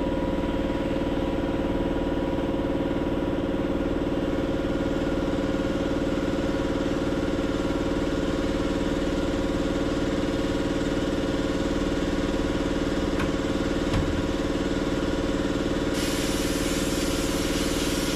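Sandblasting in a blast cabinet: the small vacuum on the cabinet's dust exhaust runs with a steady whine under the hiss of air and abrasive from the blast gun. The hiss turns sharper and louder about two seconds before the end.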